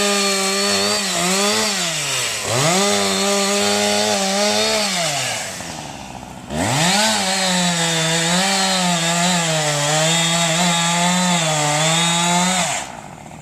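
Two-stroke chainsaw cutting pine limbs at high revs, its pitch wavering as it works. It eases off and revs back up twice, then shuts off near the end.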